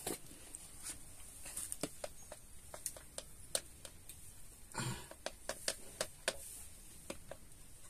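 Scattered light clicks and taps of kitchen utensils while the chicken marinade is being mixed, with a brief voice sound about five seconds in.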